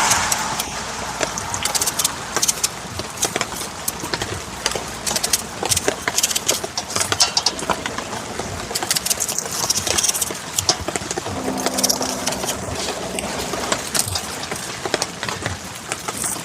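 Onion being cut with a knife: irregular sharp clicks of the blade, over a light background hiss. A low steady hum comes in about eleven seconds in and fades after a few seconds.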